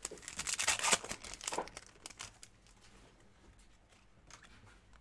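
Foil wrapper of a 2020 Donruss Optic football card pack crinkling and tearing as it is ripped open, dense for about the first second and a half, then a few light taps and rustles as the cards are handled.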